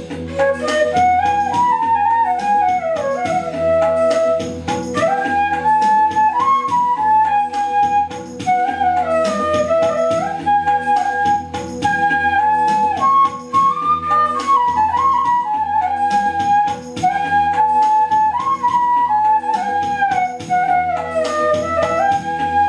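Bamboo transverse flute (bansuri) playing a melody with slides between notes, over a backing track with a steady drone and a regular beat.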